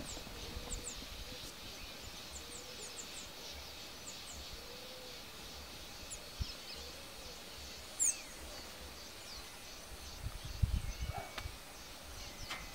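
Outdoor ambience of small birds chirping: short, high chirps scattered throughout over a steady background hiss, with a few brief low thuds near the end.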